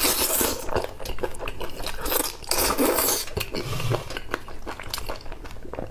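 Close-miked eating: a man biting into and chewing spicy chicken feet, with irregular wet crackling and crunching bites.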